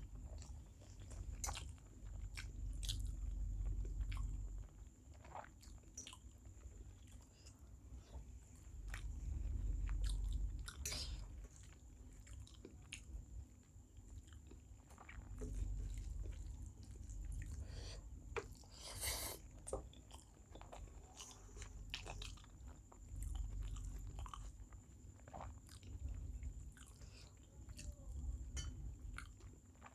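Close-miked chewing and biting of rice and small fish curry, coming in swells every few seconds, with scattered small crunches and wet clicks.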